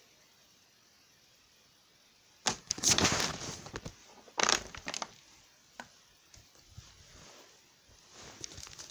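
Plastic water bottle crackling as it is gripped and handled, in two loud bursts after a quiet start, then a few lighter clicks.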